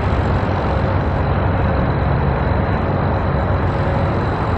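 Steady outdoor background rumble and hiss, constant throughout, with no single event standing out.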